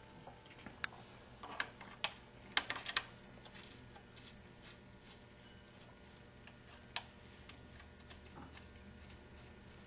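Light metal clicks and taps from a connecting rod cap being handled and fitted onto its rod bolts over the crankshaft journal. Several come in the first three seconds, then one more about seven seconds in.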